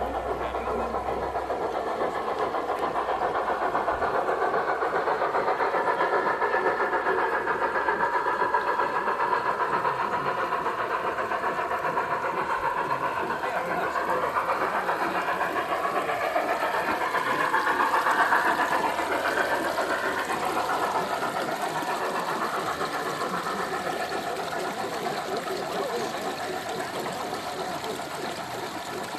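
The onboard sound system of large-scale model diesel locomotives plays a diesel engine sound that rises and falls in pitch, loudest about halfway through, with people talking.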